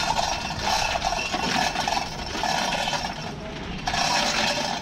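A machine running with a drone that comes and goes every half second or so, over rattling and scraping of metal chain being handled.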